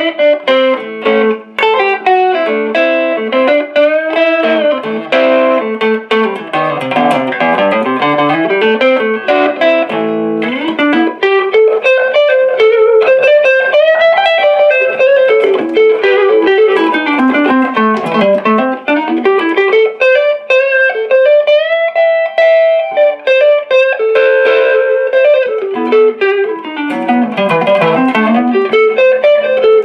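1960 Silvertone 1423 Jupiter electric guitar with DeArmond pickups, played in quick runs of single notes that climb and fall over and over without a break.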